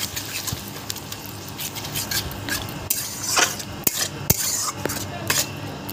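Metal spatula stirring and scraping masala paste around a kadhai as it fries, with irregular sharp clinks against the pan, the loudest between about three and five and a half seconds in.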